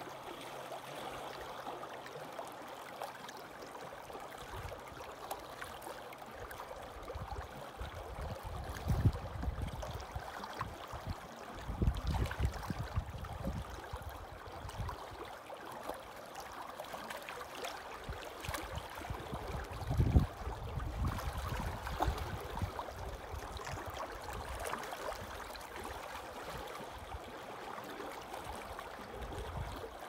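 Small waves lapping and gurgling against shoreline rocks, a steady wash of water, with a few brief low rumbles, the loudest about two-thirds of the way in.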